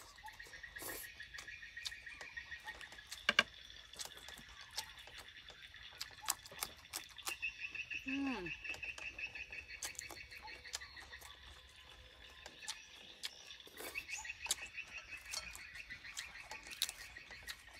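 Eating sounds: chewing, slurping and lip smacks, with a sharper click about three seconds in. Behind them, rapid pulsed animal trills come and go, and a single falling call sounds about eight seconds in.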